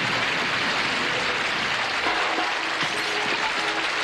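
Studio audience applauding, with a few short band notes joining in about halfway through.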